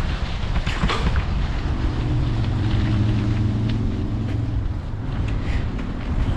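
Wind rushing over the microphone of a bicycle being ridden along a dirt trail, with a couple of knocks from the bike jolting over bumps about a second in. A low steady hum comes in around two seconds and fades out near five seconds.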